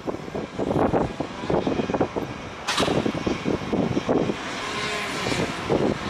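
Outdoor construction-site noise: engines running, with irregular gusts buffeting the microphone and a single sharp click about two and a half seconds in.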